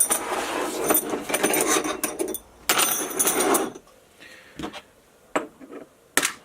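Small metal parts and tools clattering and clinking as they are handled on a workbench, in two long bursts over the first four seconds, followed by a few separate clicks.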